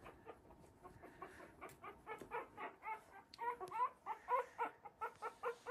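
Three-week-old Havanese puppies squeaking and whimpering in a quick run of short, high little calls, about three or four a second. The calls are faint at first and grow louder a little past halfway.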